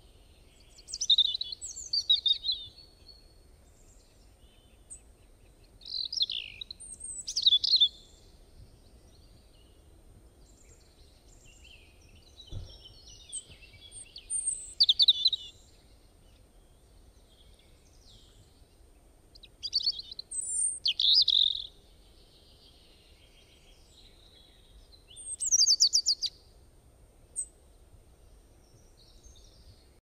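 A caged lovebird chirping, high-pitched, in five short bouts spaced about six seconds apart.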